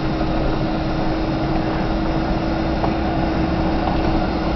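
Steady engine and road noise of a vehicle driving slowly on a gravel road, heard from inside the cabin, with a constant low hum.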